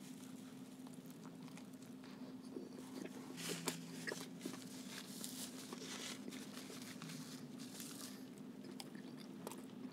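A person biting into and chewing a crispy fried chicken sandwich: faint crunching and wet mouth sounds, busiest a few seconds in, over a faint steady hum.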